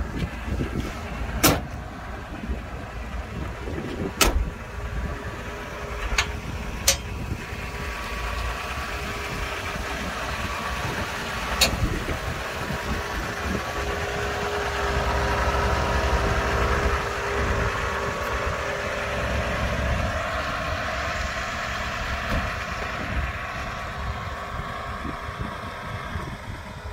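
Toyota FJ60 Land Cruiser's 2F inline-six engine running, growing louder through the middle and easing off near the end, with wind rumbling on the microphone. Four sharp knocks come in the first dozen seconds.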